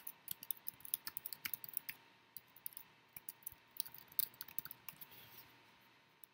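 Computer keyboard typing: quick, irregular key clicks that thin out and stop shortly before the end.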